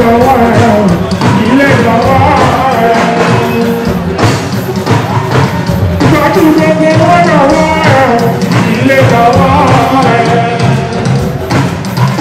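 Live fuji music: a man singing into a microphone over steady percussion and bass.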